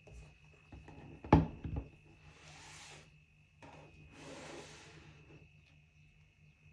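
Hands handling the Apple Pencil and its packaging on a hard surface: one sharp knock with a short rattle after it, then two longer rubbing, sliding swishes.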